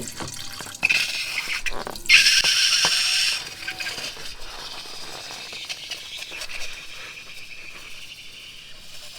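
Wet, sticky slime being squeezed and worked by hand, squelching and crackling, with two louder squishy stretches in the first few seconds before it settles into softer crackling.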